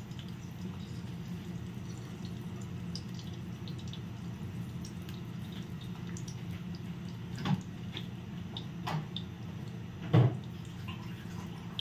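Cooking oil heating in a nonstick pot, giving a few scattered pops and crackles, the loudest about ten seconds in, over a steady low hum.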